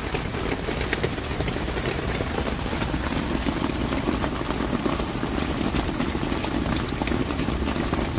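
Steady rain on the tent's fabric, heard from inside: a dense, unbroken patter with scattered sharper drop hits.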